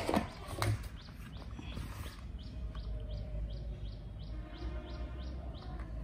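A bird chirping in a steady series of short, high, falling chirps, about three a second, with a couple of brief rustles in the first second.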